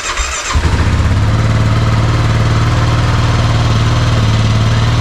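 2022 Kawasaki KLR 650's single-cylinder engine started on the electric starter: brief cranking, catching about half a second in, then idling steadily to warm the oil before an oil change.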